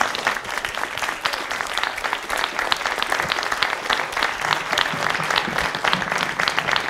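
Audience applauding: many hands clapping in a dense, steady round of applause.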